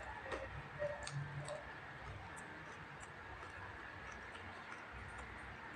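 Quiet close-up eating sounds: scattered small wet clicks and smacks of chewing, with fingers picking rice off a wooden board. The clicks are thickest in the first two seconds and sparser after.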